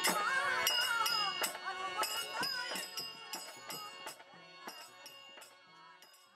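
Folk music: a singing voice over a steady beat of rattling, jingling percussion. The music fades out steadily over the second half.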